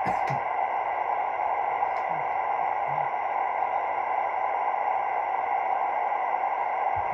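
Steady static hiss from a CB radio scanner receiving no clear transmission, with faint fixed tones in the hiss.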